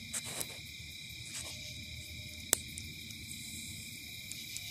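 Night insects chirring steadily at a few fixed high pitches, with one sharp click about two and a half seconds in.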